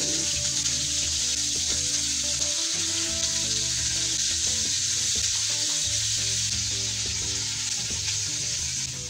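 Marinated pork pieces sizzling steadily as they fry in oil in a non-stick pan, being browned; the sizzle eases slightly near the end.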